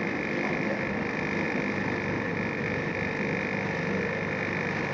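Magimix 4200 food processor running with its dough blade, kneading brioche dough: a steady motor drone with a constant high whine.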